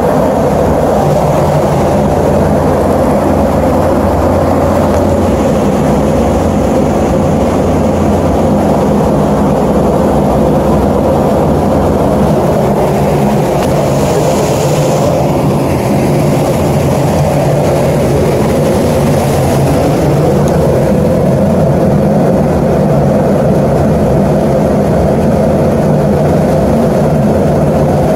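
Large HVAC unit's fan running: a steady rush of moving air over a low, even motor hum.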